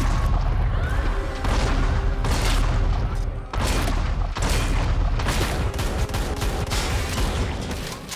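Gunfire from a pistol and a pump-action shotgun: a dozen or so shots at irregular intervals, each with a heavy boom and a trailing echo, over a steady deep rumble.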